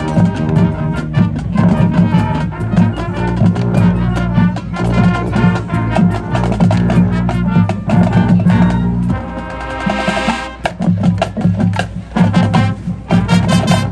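High school marching band playing a field show number, with brass and a drumline beating out a busy rhythm; the music stops abruptly at the very end.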